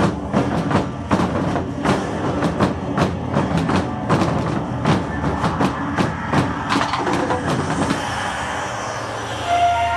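Rapid drumming, a few hard strikes each second over a steady low drone, thinning out near the end as pitched music comes in.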